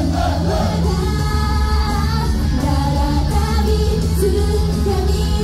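Idol pop song playing loud, voices singing over a steady bass-heavy backing.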